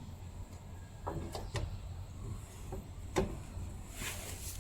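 A few light knocks and clicks, irregularly spaced, from parts of a saw blade grinder being handled and fastened during installation, with a brief rustle near the end over a steady low hum.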